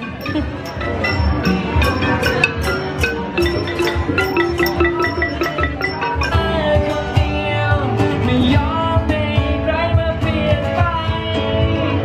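Music: a light tune of quick, clipped struck notes, with a sung melody coming in about halfway through.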